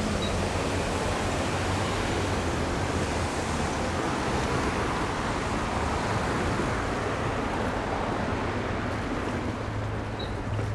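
Road traffic driving over a level railroad crossing: a steady rush of car tyres and engines.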